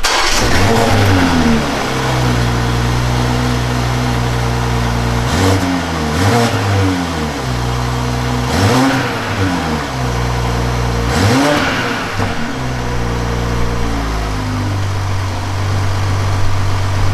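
Cold start of a BMW X5 40i's B58 3.0-litre turbocharged straight-six, heard through its stock exhaust: the engine fires and flares up, then its revs rise and fall briefly about four times. From about 14 seconds it settles into a steady, lower idle.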